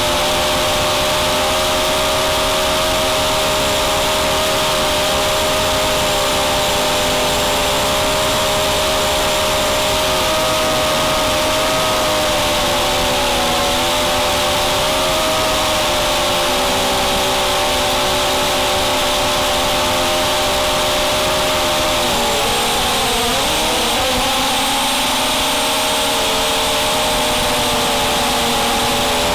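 Brushless motors and propellers of a QAV250 racing quadcopter whining steadily in flight, heard close from the onboard camera. The pitch dips and comes back up about three-quarters of the way in as the throttle changes.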